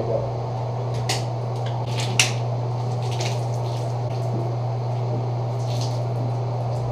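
Beer being shotgunned from punctured cans: a few sharp clicks in the first seconds as the can tabs are cracked open, then beer gushing and being gulped down, over a steady low hum.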